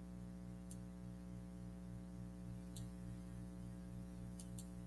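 Steady low electrical hum with a pulsing buzz, and four faint computer-mouse clicks, the last two close together near the end.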